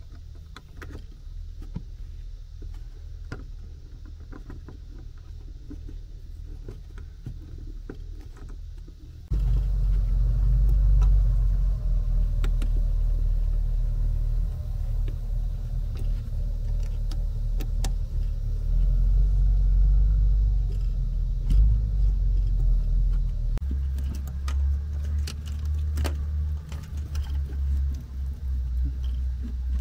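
A low rumble that gets suddenly much louder about nine seconds in, with scattered small clicks and rattles from gloved hands handling electrical cables, a cable gland and a breaker panel.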